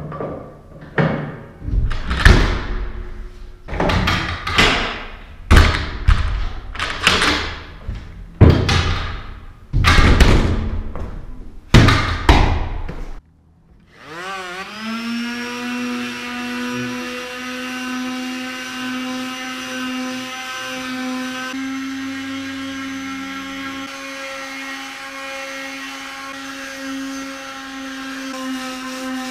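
A run of loud, echoing thuds, about one a second. After a short break, a corded electric drill spins up and runs with a steady whine.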